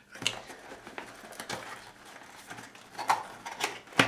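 A small cardboard box handled and opened by hand: scattered light taps, scrapes and rustling of card, with a sharp click near the end as the box end is pried open.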